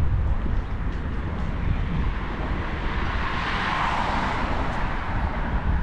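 Wind buffeting a GoPro's microphone while cycling, a steady low rumble. Over it a passing vehicle's hiss swells to a peak about four seconds in and fades.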